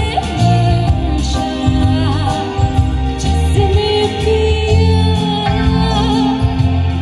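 Live band playing a Hindi film song with a singer's voice carrying the melody over drum kit, keyboard and acoustic guitar, at a steady beat.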